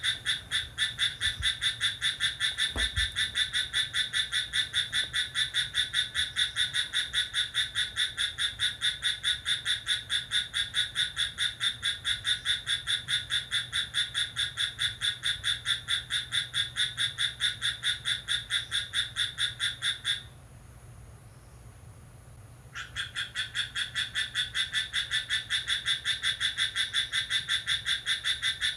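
A night animal's steady, high-pitched pulsed call, a fast even train of about four to five pulses a second. It breaks off for about two and a half seconds near the end, then starts again.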